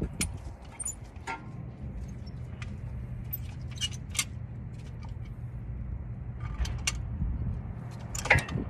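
Light metallic clicks and clinks from a Honda Ridgeline's front brake caliper and pads being handled as the caliper is swung down over the pads, with a sharper clack near the end. A steady low hum runs underneath.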